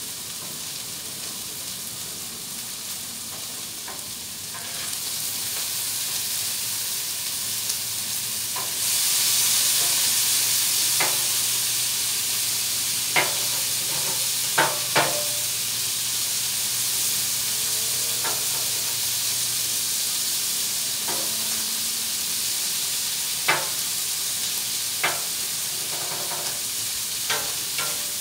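Meat sizzling on a Blackstone flat-top griddle, the sizzle stepping up louder about a third of the way in. A metal spatula clicks sharply against the steel cooking surface a handful of times.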